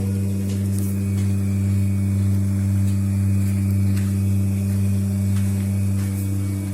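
A steady, loud, low machine hum that does not change.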